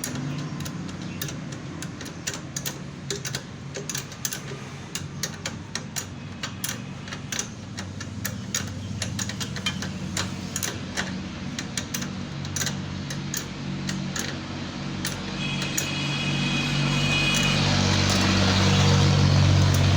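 Honda CD 70's small single-cylinder four-stroke engine running steadily, with many sharp clicks and ticks over it. The engine gets louder from about three-quarters of the way through, and a brief thin high tone sounds around then.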